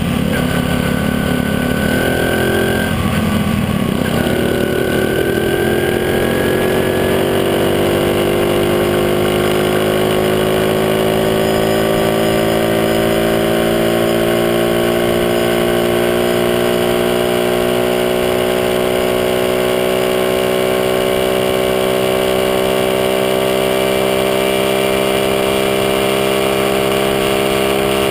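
Small motorcycle engine under way. After a brief shift about three seconds in, its note climbs slowly and steadily as the bike gains speed, with road and wind noise underneath.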